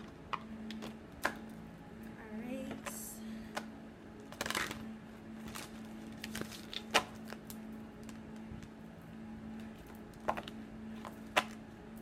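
A deck of oracle cards being shuffled and handled on a table: irregular sharp clicks and taps, with a short rustling slide of cards about three seconds in and another a second or so later. A steady low hum runs underneath.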